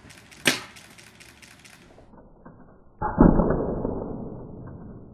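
A paintball gun fires: a single sharp crack about half a second in. About three seconds in comes a louder, duller low thud that dies away over about two seconds.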